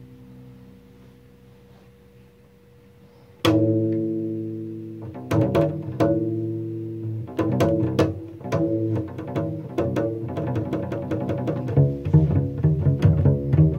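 Cello music: quiet held low notes, then about three and a half seconds in a sudden loud chord, followed by quick plucked notes that grow busier, with a heavier low bass line joining near the end.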